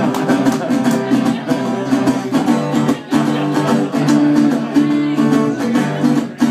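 Solo guitar playing an instrumental passage in a steady rhythm, with a brief dip about halfway through.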